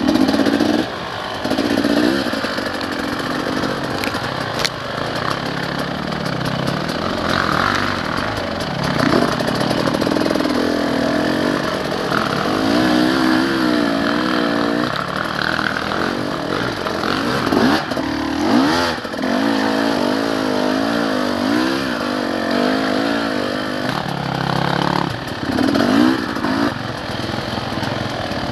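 Dirt bike engines revving up and down as the bikes are ridden along a wooded single-track trail, the pitch rising and falling with the throttle, with a few knocks along the way.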